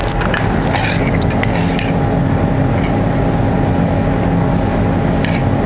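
Steady mechanical hum of a professional kitchen's ventilation, with a few faint clicks and clinks of a spoon against a stainless steel saucepan.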